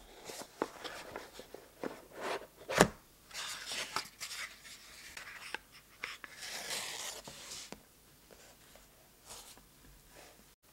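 An orange paperboard gift box being opened and handled: cardboard scraping and rubbing as the lid slides off, with one sharp knock about three seconds in. Quieter after about eight seconds, with one light tap near the end.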